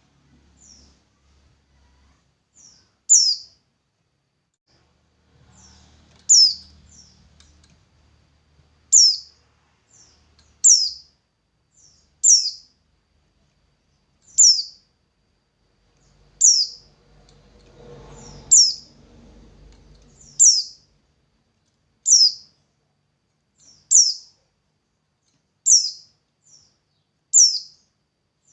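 A songbird repeating a short, high chirp that falls in pitch, about every one and a half to two seconds, with fainter short notes in between. A faint low rumble runs underneath for a few seconds twice.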